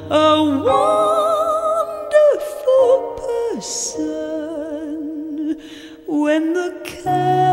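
A woman singing a musical-theatre ballad over instrumental accompaniment, holding long notes with a wide vibrato.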